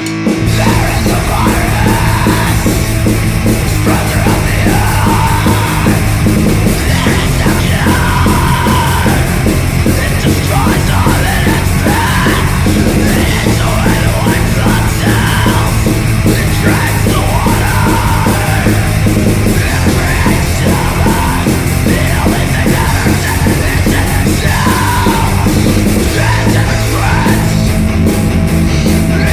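Band recording of a loud, aggressive punk/metal song: distorted guitar, bass and drums come in all at once at full volume, with yelled vocals over them.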